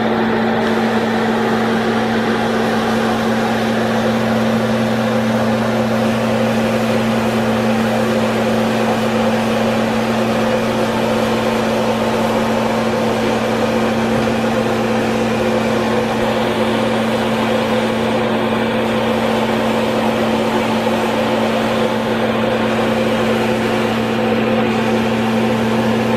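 A kitchen appliance's fan motor running with a loud, steady hum and a low electrical buzz that does not change.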